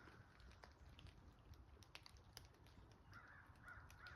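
Crow cawing faintly: a quick run of four or five caws, a few to the second, starting about three seconds in.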